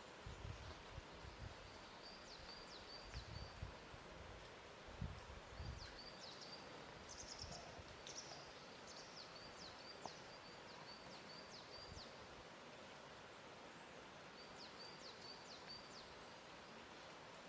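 Faint lakeshore ambience: a steady soft hiss with a few low, soft swells of water lapping at the shore. A small bird chirps in short runs of quick high notes, several times.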